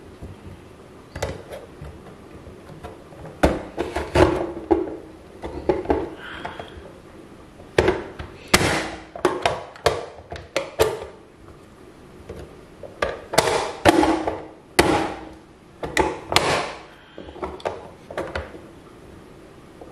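Manual push-down vegetable dicer: its hinged plastic lid is slammed down to force vegetable pieces through the grid blade, giving sharp plastic clacks and thuds. They come in three clusters, a few seconds apart.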